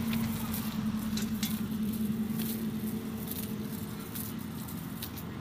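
Wet nylon cast net being lowered onto the ground, giving scattered soft clicks, crackles and rustles from the mesh and its weighted edge, over a steady low engine hum.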